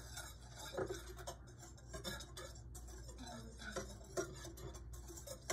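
Whisk ticking and scraping against a saucepan, stirring a dry mix of sugar, cornstarch and salt: a quiet run of light, quick ticks.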